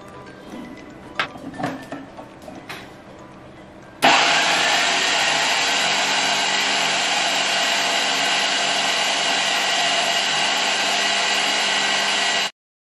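A few light knocks, then an electric mixer grinder starts abruptly about four seconds in and runs at a steady pitch, grinding the chicken filling with tomato, before cutting off suddenly near the end.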